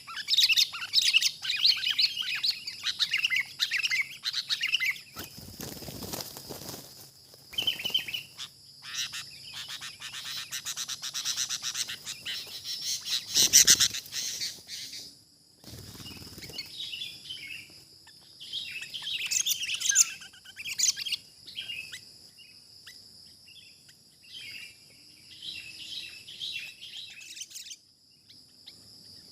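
Sooty-headed bulbuls giving bouts of quick chattering calls, dense in the first few seconds and again about two-thirds of the way in, over a steady high insect whine. A few brief rustling noises break in, the loudest about halfway through.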